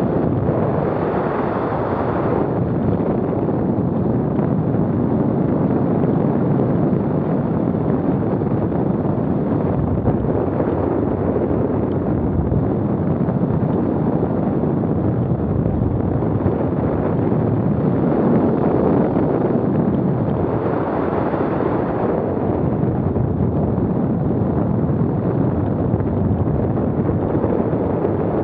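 Wind buffeting the microphone: a loud, steady low rumble of wind noise that swells in gusts near the start and again around 18 and 21 seconds in.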